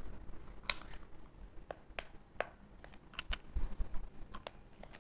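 Steel spatula clicking and scraping against a frying pan while stirring watery masala gravy: light, irregular taps, about eight or nine of them.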